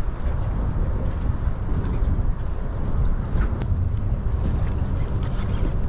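Wind buffeting the microphone: a steady, uneven low rumble, with a few faint clicks in the middle.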